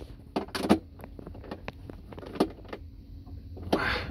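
Hand tool working a terminal screw on a boat's fuse block: scattered small metallic clicks and knocks, with a longer scrape near the end.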